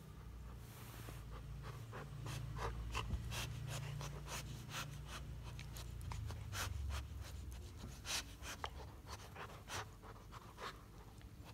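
Labrador retriever chewing and mouthing a plush toy: irregular wet clicks and smacks from the dog's mouth, many in a row, with no squeak from the toy, whose squeaker is not sounding.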